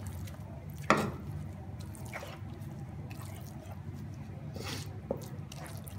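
Wooden spoon stirring and scraping a thick, moist semolina halwa mixture in ghee around a nonstick frying pan, with a sharp knock of the spoon on the pan about a second in. A steady low hum runs underneath.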